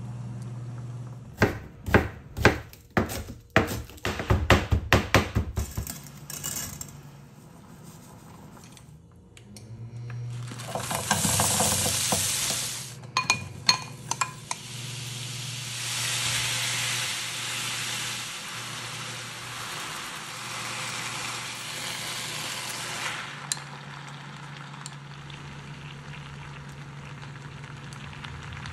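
Sharp knocks in quick succession, then green onion and chicken hitting hot oil in a frying pan: loud sizzling while the food is stirred, which settles to a quieter sizzle near the end.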